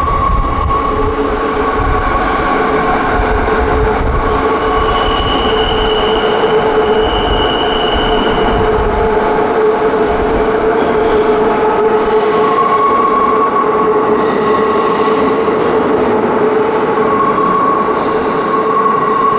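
Electric commuter train running with steady wheel squeal: several high tones held over a low rumble. The rumble fades about halfway through while the squeal goes on.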